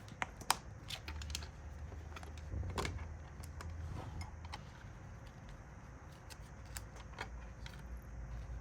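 Small hard resin items being handled and packed: sharp clicks and light clatter, with a few louder clicks in the first second and again near three seconds, over a low handling rumble.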